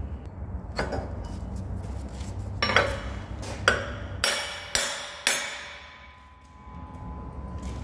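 Hammer blows on a steel block, driving a steel sleeve along a hollow bar on a scraper bail arm. There are about six sharp metallic strikes at uneven intervals, each with a short ring.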